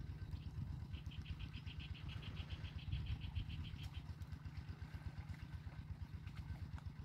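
A small engine running steadily, an even low thudding beat. From about one to four seconds in, a rapid high chirping trill.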